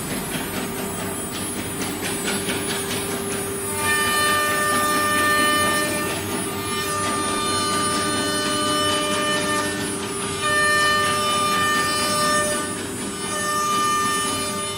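CNC router spindle running at high speed and cutting wood, with a steady whine throughout. About four seconds in, higher ringing tones join and come and go as the cutter works through the material.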